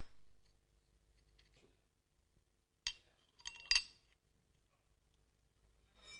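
A few small metallic clicks and clinks from the steel parts of a Tormek planer blade jig being handled: a single click about three seconds in, then a short cluster of clicks just after, and a faint one near the end.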